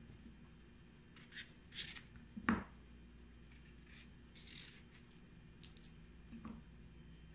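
Small paring knife cutting through raw chayote flesh: a few short, faint scraping cuts, with a sharp knock on the cutting board about two and a half seconds in and a lighter knock near the end.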